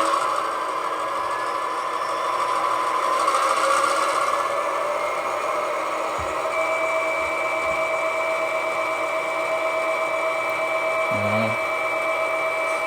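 Two sound-equipped HO scale diesel locomotive models, an Athearn Genesis GP38-2 and GP40-2, running together, their Tsunami 2 decoders playing diesel engine sound through small onboard speakers. A steady high tone joins about halfway through.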